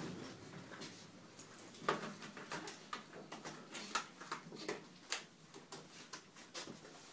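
Faint handling sounds: soft rustling with irregular small clicks and knocks, the sharpest about two seconds in and again around four and five seconds in.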